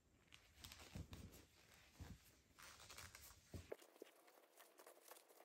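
Near silence, with faint soft rustles and light clicks from a plastic crochet hook working chunky T-shirt yarn.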